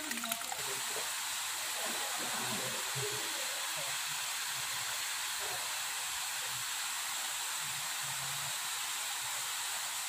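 Small waterfall pouring down a rock face, heard as a steady rushing hiss. Water trickling over stones is heard briefly at the very start.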